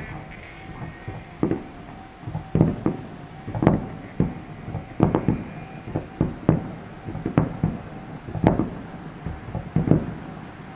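Aerial firework shells bursting: about a dozen booms at uneven intervals, some in quick pairs.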